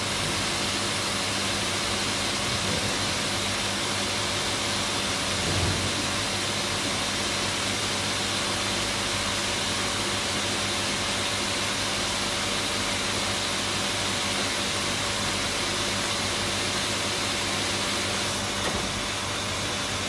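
Water rushing steadily through the meter and filling line into a 20-litre bottle during a calibration refill, with a faint steady hum under it. The flow comes on at the start and then holds steady.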